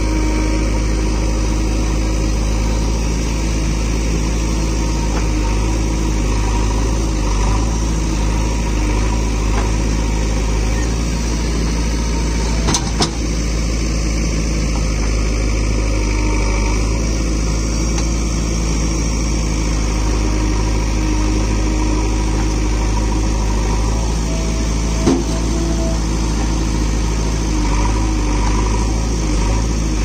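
JCB backhoe loader's diesel engine running steadily while the backhoe digs and loads soil, with a sharp knock about halfway through and a smaller one later.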